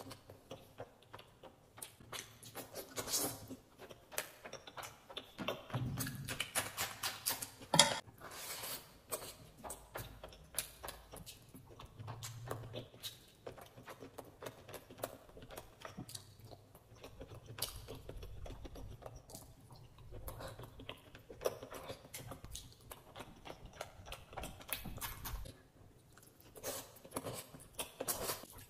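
Close-up chewing and lip-smacking of a man eating rice and meat curry by hand: many short, irregular smacks and clicks, with one sharper snap about eight seconds in.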